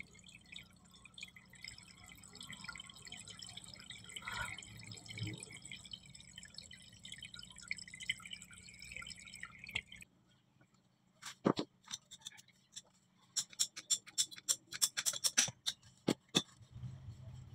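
Water spraying from a leaking joint in a plastic water pipe, a steady hiss and splash into pooled water that cuts off about ten seconds in. A run of sharp clicks and taps follows.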